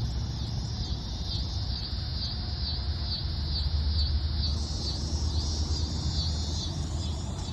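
Crickets chirping steadily in a high, even pulse of about two chirps a second, over a low rumble.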